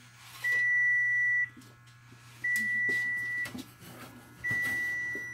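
Oven timer alarm sounding: a steady high beep about a second long, repeating every two seconds, three times here, signalling that the bake time is up.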